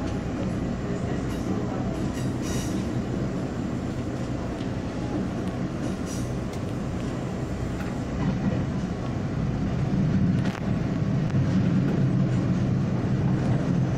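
Taiwan Railway commuter electric train running along the line: a steady rumble of wheels on rail with a low hum. It grows louder about eight seconds in, with a single sharp click a couple of seconds later.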